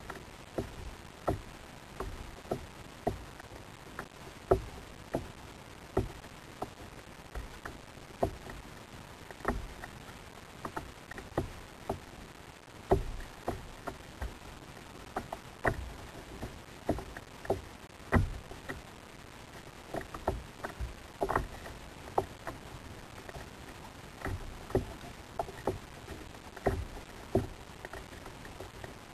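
Water slapping and knocking against a kayak's hull at sea: irregular short knocks and thumps, about one or two a second, over a steady faint hiss.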